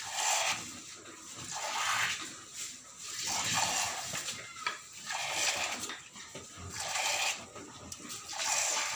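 A cow being milked by hand: jets of milk squirt into a container with a hissing sound, in a steady rhythm of about one squirt every second and a half.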